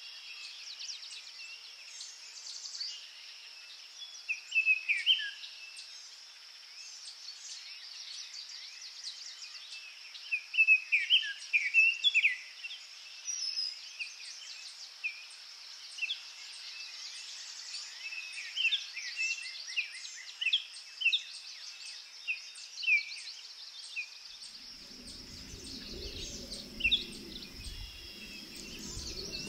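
Mountain-meadow ambience: a steady high-pitched insect drone, with small birds chirping in short phrases at intervals, loudest around the middle. A low buzzing comes in near the end.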